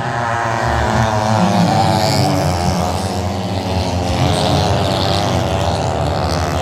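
Several sand track racing motorcycles, 500 cc single-cylinder racing bikes, racing around the oval. Their engines make one loud, steady drone whose pitch wavers up and down as the riders work the throttle through the bend.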